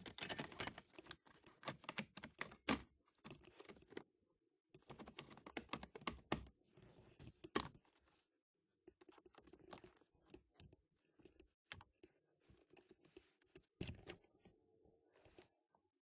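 Faint, scattered clicks, taps and knocks of plastic interior trim panels being handled and fitted back on.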